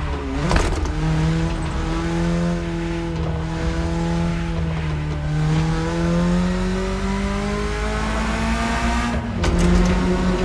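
BMW E30 engine under way through the gears. A short break about half a second in, then the engine note holds and slowly climbs until a gearshift near the end drops its pitch.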